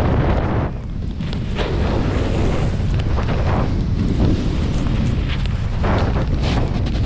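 Heavy wind rumbling on the microphone of a camera riding along with a snowboarder on the way down, with a few brief surges of hiss as the board's edge sprays snow in turns.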